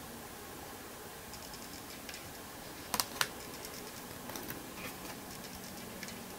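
Oracle cards being handled as one card is moved from the front of the deck to the back: faint ticks of card stock, with two sharp clicks close together about three seconds in.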